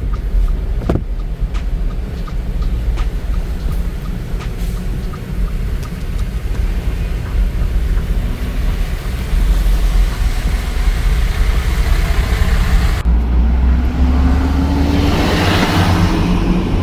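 Car on the road: a steady low rumble of engine and tyres. In the last few seconds a rising engine note and a swell of road hiss come up.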